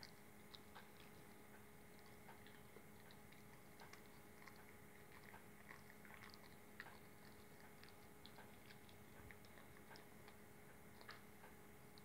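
Great Dane puppy chewing and mouthing a marshmallow: faint, irregular clicks and smacks of its jaws, over a steady low electrical hum.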